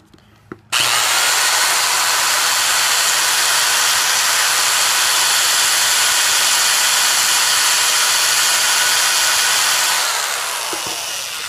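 Electric drill running at steady speed, spinning a copper soldering-iron tip against a flat file: a steady motor whine mixed with the rasp of the file grinding the copper to a point. It starts abruptly about a second in and winds down near the end.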